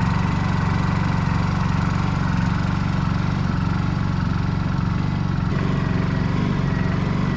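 Honda portable inverter generator running steadily with an even engine hum.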